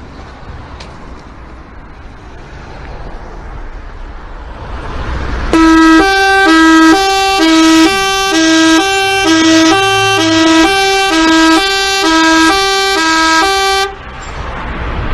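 Indonesian 'telolet' bus horn, a multi-tone musical air horn, playing its jingle: a loud run of notes hopping back and forth between pitches about twice a second for roughly eight seconds, then cutting off. A rush of noise builds up before the horn starts.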